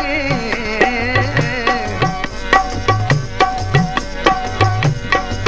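Punjabi folk song accompaniment: a held sung note with vibrato trails off about two seconds in, then a hand drum keeps a steady rhythm with bending bass strokes under sustained harmonium tones.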